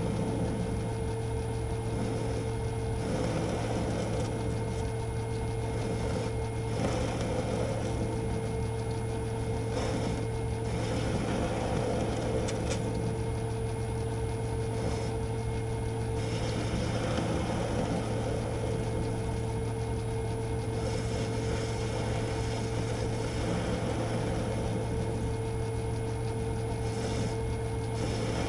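Metal lathe running through a facing cut: a steady motor and gear hum with a constant tone over it, and the scraping of the cutting tool, which swells and eases as the cut goes on.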